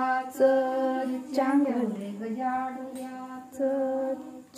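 A woman's voice singing unaccompanied: a slow song of long, held notes, with a short dip in pitch about two seconds in.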